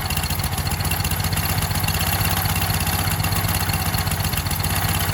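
Small generator engine running on biogas at a low, steady idle while it warms up.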